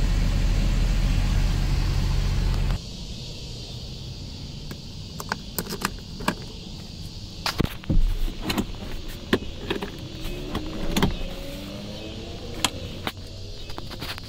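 A loud, steady mechanical drone with a low hum and hiss cuts off abruptly about three seconds in. Scattered clicks and knocks follow, as from handling of the recording device.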